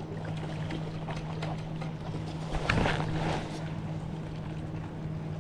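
A steady low hum runs throughout, with scattered light clicks and knocks of fishing gear and a louder clatter about two and a half seconds in, while a lure snagged in a tree is worked free from a kayak.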